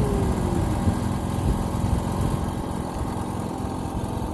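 Boat engine idling steadily with an even, low rumble.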